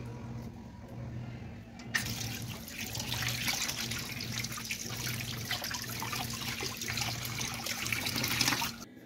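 Water from a tap splashing over fish being rinsed by hand into a plastic tub. It starts suddenly about two seconds in and cuts off near the end.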